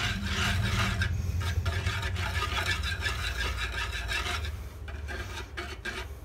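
Wire whisk scraping rapidly around a nonstick saucepan, mixing cocoa powder into milk and cream, over a low steady hum. About four and a half seconds in, the whisking softens to a few light clicks.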